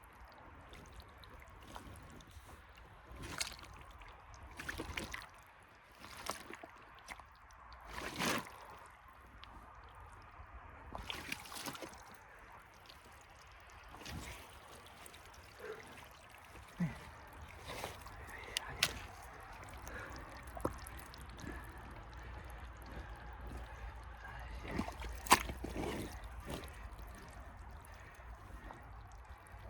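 Muck Arctic rubber boots squelching and sucking in wet peat bog mud, an irregular run of squelches and wet splashes of varying loudness, the loudest about three quarters of the way through.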